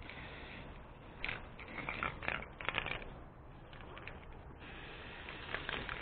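Short handling clatters and rustles about a second in, then the steady hiss of an aerosol spray-paint can spraying paint onto a metal boat hook.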